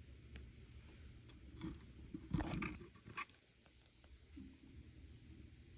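Faint clicks and rubbing of pliers working silver-plated copper wire as a wire loop is pressed closed, with a short cluster of scraping about two and a half seconds in and a sharp click just after three seconds.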